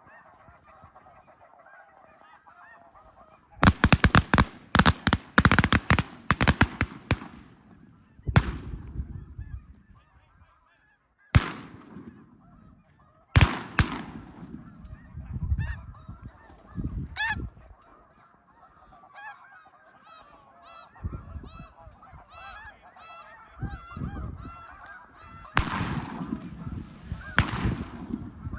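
Snow geese calling, broken about three and a half seconds in by a rapid volley of many shotgun shots from several hunters. Single shots follow a few seconds apart, with two more near the end, as the geese keep calling between them.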